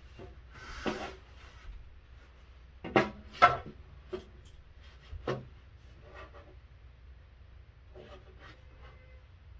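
Wooden crib frame parts being handled and fitted together: a rubbing scrape about a second in, then two sharp knocks close together around three seconds in, followed by a few lighter knocks and taps.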